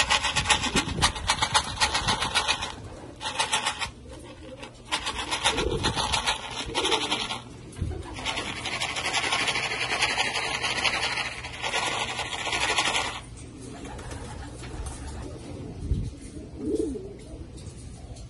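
Racing pigeons cooing now and then, under a loud rasping buzz that comes and goes in several bouts of a few seconds and stops about two-thirds of the way through.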